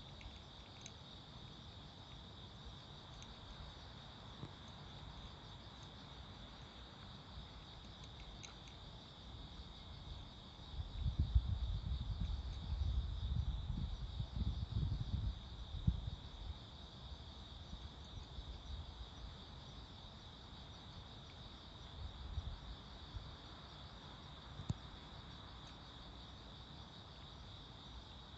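Crickets chirring in a steady, continuous chorus. About a third of the way in, a low rumble rises for several seconds and then fades.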